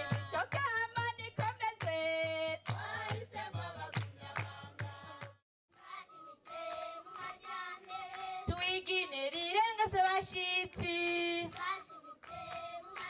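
Group singing over a steady drum beat, which breaks off about five seconds in. After a short pause, voices go on singing a melody without the drum.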